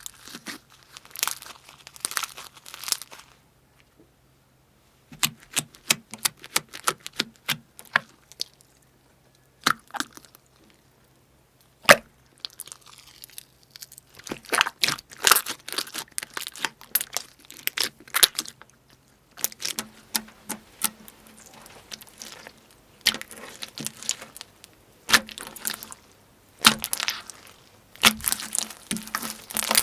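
Crunchy slime being squeezed and pulled apart, giving runs of sharp crackles and snaps. There are short quiet gaps a few seconds in and again around ten seconds in.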